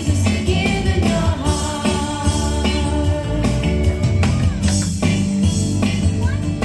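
Background music: a song with singing over instruments and a strong, steady bass.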